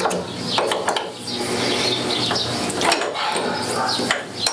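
Spanner and bar clinking and scraping on the nut of an ER32 collet chuck on a metal lathe, with irregular metal-on-metal clicks and rubbing as the collet nut is worked.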